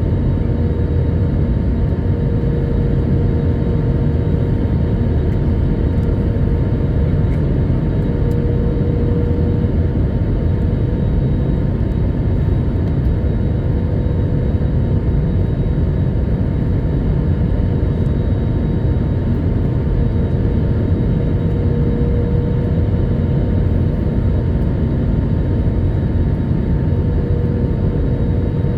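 Airbus A321neo cabin noise in flight: a steady low rumble of engines and airflow, with a faint steady hum.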